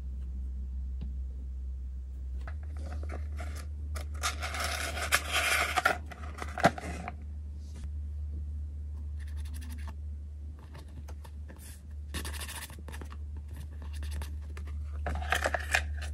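Hands handling a plastic toy lunch box and a paper insert card, making scratchy rustling with a few sharp clicks. It comes in three bursts: the longest and loudest about four seconds in, and shorter ones near the middle and at the end.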